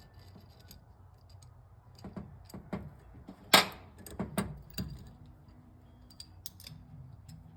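Metal clinks and clicks of battery terminal hardware and hand tools being handled, several sharp knocks with the loudest about three and a half seconds in.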